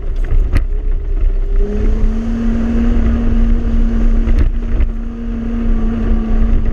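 Toyota Tacoma pickup driving over sand, heard from inside the cab: the engine runs under a loud low rumble, settling into a steady hum about two seconds in, with a few sharp knocks as the truck rides over the dunes.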